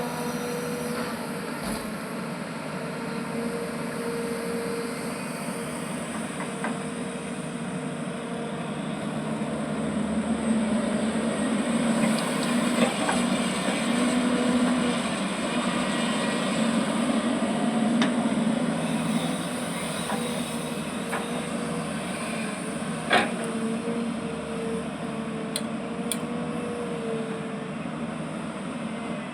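Diesel engine of a backhoe loader or excavator running steadily, louder for a while in the middle as the machine works under load, with a held whine that comes and goes. A few sharp metallic knocks are heard, the loudest one past the middle.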